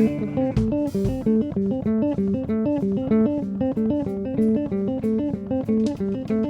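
Live band music: a quick, repeating figure of plucked guitar notes, about four a second, over bass, with a couple of sharp hits in the first second.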